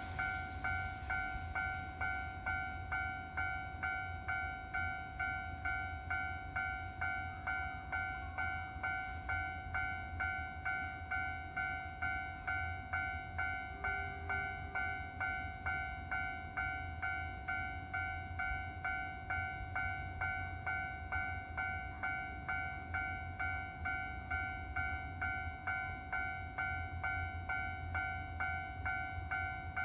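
Electronic Japanese railroad crossing warning bell ringing in rapid, even strikes, with a steady low rumble underneath.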